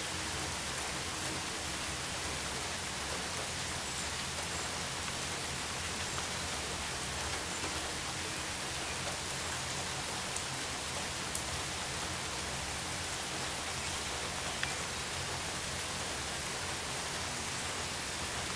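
Steady rainfall, an even hiss with a few separate drops ticking close by.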